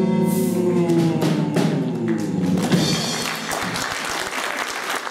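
Live rock band with guitars, keyboard and drum kit holding a final chord while the drums strike several times, the notes dying away about three seconds in. The audience breaks into applause as the music ends.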